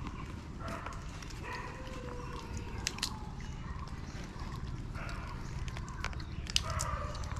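Langur monkeys eating biscuits at a cardboard box: scattered sharp crunches and crackles, loudest about three seconds in and again near the end, over a steady low hum.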